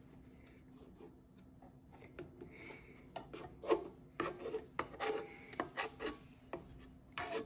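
A utensil scraping and rubbing against a mixing bowl: a run of irregular scrapes starting about three seconds in, loudest in the middle and tapering near the end.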